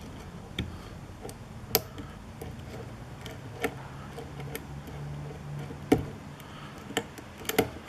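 Lock pick working inside a TESA (Assa Abloy) pin-tumbler lock cylinder: scattered sharp metallic ticks and clicks at irregular intervals as the pick lifts and taps the pins. The pins give little feedback.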